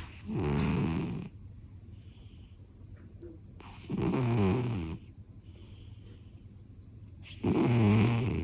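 A British Shorthair cat snoring in its sleep: three loud snores about three and a half seconds apart, with fainter hissing breaths between them.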